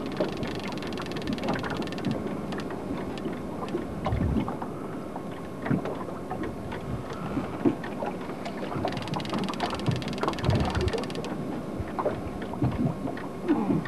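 Noise aboard a small fishing boat on open water: wind and water on the microphone, with scattered clicks and a few louder knocks.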